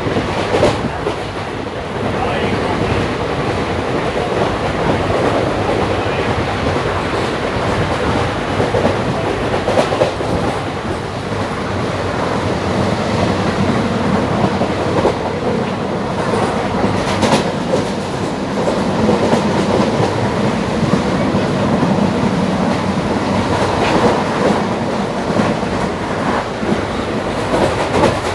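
Running noise of a moving Indian Railways passenger train heard from inside a coach: a steady rumble with the clickety-clack of wheels over rail joints and a few sharper clicks.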